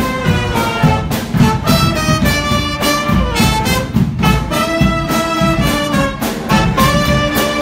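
A live street band of brass players, with trumpets and saxophones, playing a tune over a steady drum beat.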